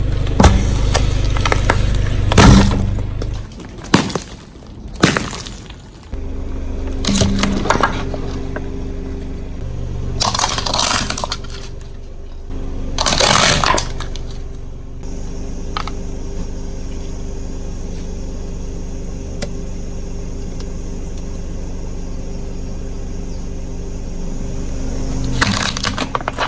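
A car's engine hums steadily while its tyre crushes crunchy objects, giving a series of sharp cracking, breaking crunches. There are about eight in the first half, then a long stretch of engine hum alone and one more crunch near the end.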